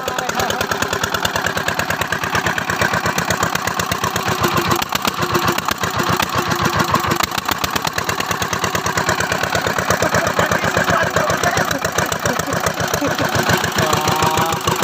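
Dongfeng single-cylinder diesel engine running steadily after being hand-cranked, with a rapid, even beat of firing strokes.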